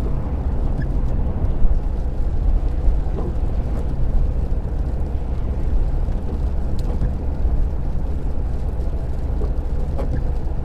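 Steady low rumble of a car's engine and tyres on a wet road, heard from inside the moving car.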